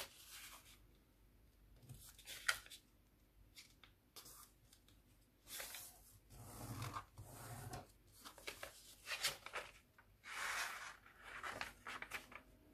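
A sheet of origami paper being folded and creased by hand: irregular rustles and crinkles of the paper, separated by short quiet gaps.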